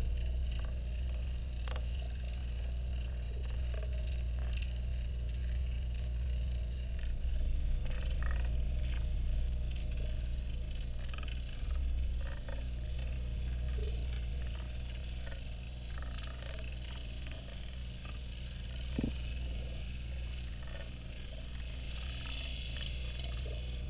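Steady low droning hum made of several even tones, with scattered faint clicks and ticks over it and one slightly louder tick near the end.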